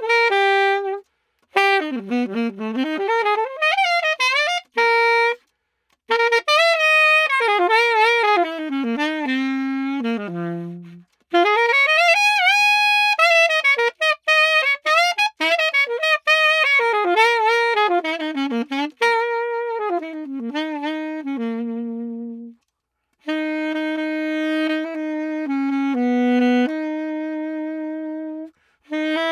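Unaccompanied Yamaha 62 saxophone playing a jazz line. Quick, winding runs are broken by short pauses, and the passage settles into longer held notes near the end. It is being played to demonstrate the sound of a swapped neck.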